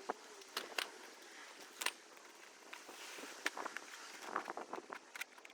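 Irregular sharp clicks and knocks, some single and some in quick clusters, over a faint steady hiss.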